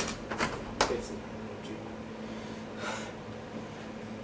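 A few short, sharp clicks within the first second, then a faint breathy sound about three seconds in, over quiet room tone.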